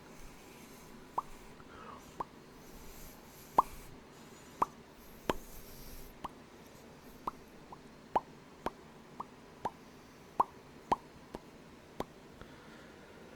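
A person making sharp popping clicks, one at a time at an irregular pace, well over a dozen in all, each with a short ringing pitch.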